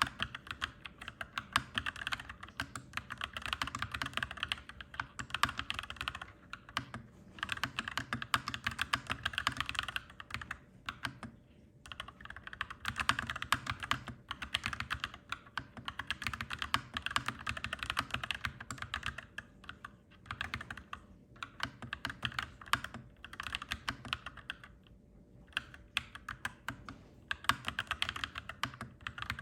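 Clacky mechanical keyboard being typed on in fast runs of keystrokes, with a few brief pauses between bursts.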